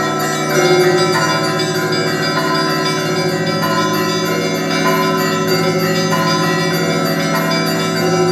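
Russian Orthodox monastery church bells ringing a festal peal: several bells struck in quick, overlapping rhythm, with smaller higher bells over a deep bell that keeps humming underneath.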